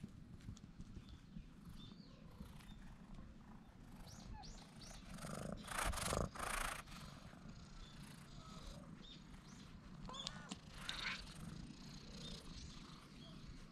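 Stray tabby cats purring close to the camera as they are petted. A cat rubs against the camera about five to seven seconds in, which makes a louder brushing noise.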